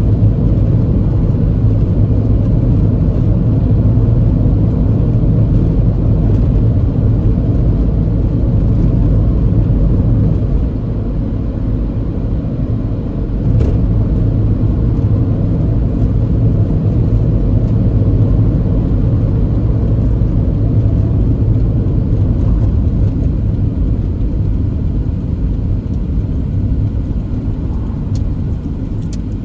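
Steady low rumble of a car driving, heard from inside the cabin: tyre and engine noise, easing a little for a couple of seconds partway through.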